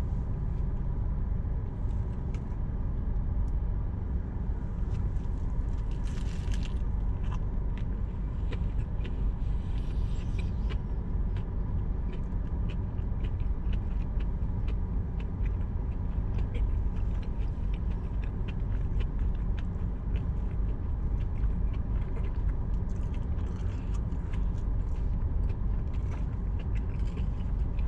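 Close-up biting into and chewing a bacon cheeseburger: many small wet clicks and soft crunches, louder briefly about six and ten seconds in, over a steady low rumble.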